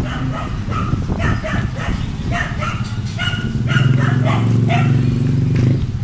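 A dog barking repeatedly in quick runs of short barks, over a steady low hum that grows louder in the second half.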